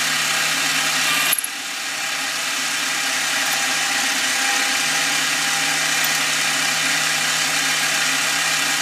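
Workshop machine running steadily with a loud hissing whir, dipping briefly about a second in and then settling back.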